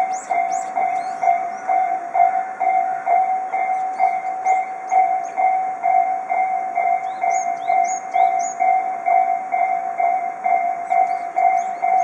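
Japanese railway level-crossing alarms ringing their repeated electronic 'kan-kan' bell tone. There are four warning units at this Y-shaped crossing, and they sound out of step with one another, so the strokes overlap.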